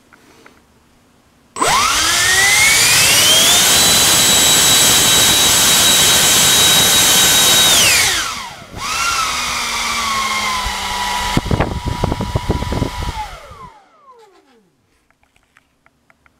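90mm electric ducted fan with a 5-blade rotor, driven by a GoolRC 4082 1900kv brushless inrunner on 8S, spooling up abruptly to a loud rising whine with a rush of air, then holding full throttle for about four seconds while drawing over 3 kW. It drops back, runs at a lower steady whine with a few knocks, and winds down near the end.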